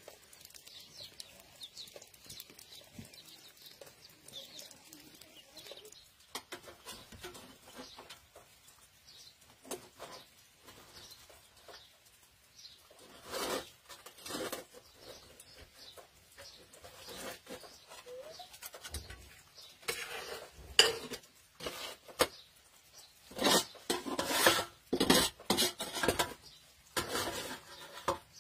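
Metal slotted ladle clinking and scraping against a metal cooking pot and a large aluminium tray as fried fish is lifted out of the oil. The clatter is sparse at first and grows dense and loud in the second half.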